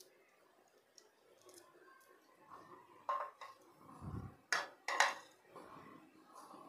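A bowl being handled on a stone countertop: a few light knocks and clunks, the sharpest about three and five seconds in, with a dull thud around four seconds.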